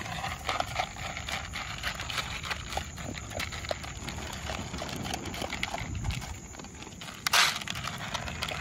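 Dogs eating dry kibble from plastic bowls: a dense run of crunching and clicking as teeth bite the kibble and knock the bowls. A single louder knock comes about seven seconds in.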